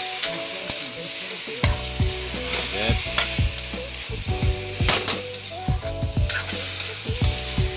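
Chicken pieces frying in hot oil in a metal wok, sizzling steadily. A metal spatula stirs and scrapes them, making repeated sharp clicks and knocks against the pan; this is the sauté stage of cooking the chicken.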